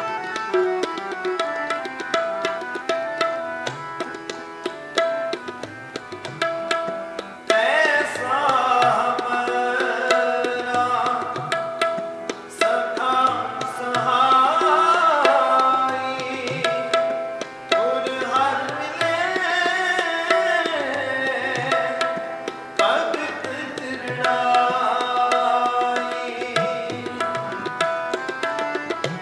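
Sikh shabad kirtan on harmonium and tabla: steady held harmonium chords over a running tabla pattern. A man's voice sings from about seven seconds in through most of the middle, then the harmonium and tabla carry on alone near the end.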